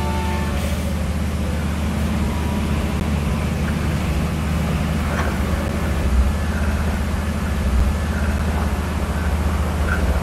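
Steady low rumble of diesel locomotives running under load as they push a railway wedge snowplow through snow.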